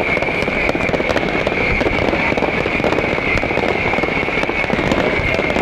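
Fireworks going off continuously: a dense, steady crackling and popping of many small reports in quick succession, over a steady high hiss.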